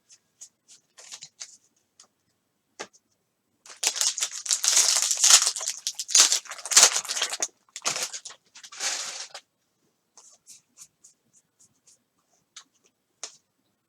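A trading-card pack wrapper being torn open and crinkled for a few seconds in the middle, with light clicks and taps of cards being handled before and after.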